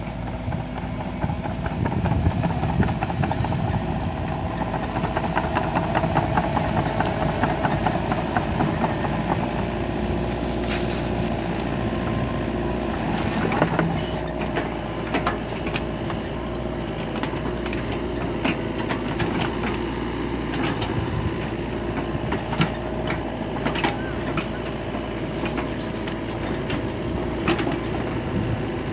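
LiuGong mini excavator running steadily while it works, with repeated short metallic clanks and knocks over the engine drone.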